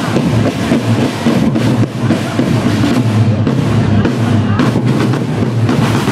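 Marching drum band playing: a row of marching snare drums beaten together in a dense, continuous rhythm.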